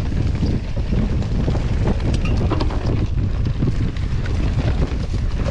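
Wind buffeting the microphone of a mountain bike riding downhill at speed, with the tyres running over the dirt trail and frequent small knocks and rattles from the bike.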